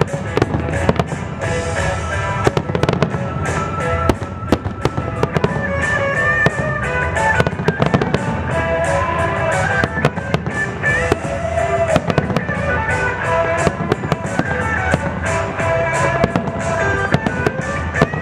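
Aerial fireworks shells bursting in quick succession, several bangs and crackles a second. Music from loudspeakers plays under the display throughout.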